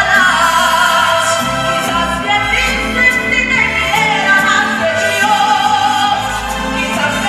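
A woman singing live into a handheld microphone over a band accompaniment, holding long notes with a wavering pitch.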